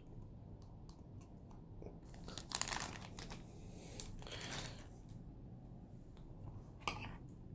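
Thin clear plastic effect sheet crinkling as it is handled and flexed, in three short bursts of crackle; the loudest comes about two and a half seconds in and the last is brief, near the end.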